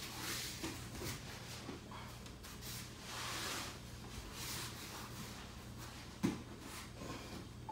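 A body rolling over foam mats: soft brushing and rustling of skin and clothing against the mat, with one dull thump about six seconds in as the body lands out of a shoulder roll.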